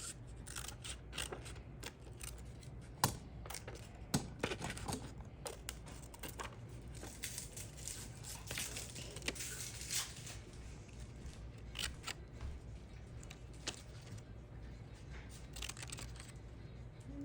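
Scissors snipping through paper in short, irregular cuts, with paper rustling between them and a couple of sharper snips about three and four seconds in.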